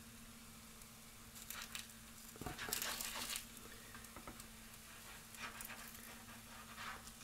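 Faint, scattered rustling and scraping as a thin crepe is worked loose and peeled off the hot plate of an electric crepe maker with a spatula, over a low steady hum; the longest scrape comes about three seconds in.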